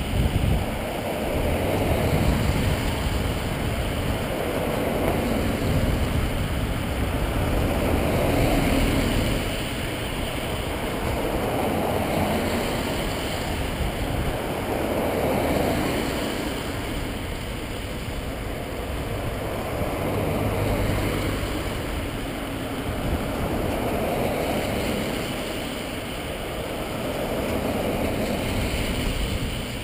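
Procession vehicles driving past one after another. The tyre and engine noise swells and fades about every two seconds as each one goes by.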